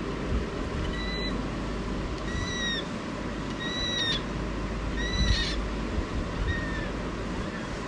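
A pet parrot giving five short, clear whistled calls, evenly spaced about a second and a half apart, over a steady low background hum.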